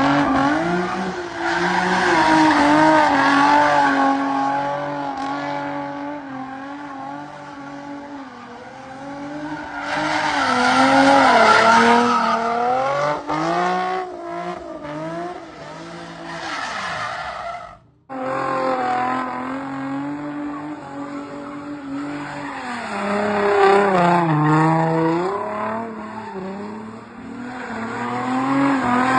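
A car driven hard, its engine revving up and down with tires squealing. The sound breaks off sharply about two-thirds of the way through and starts again.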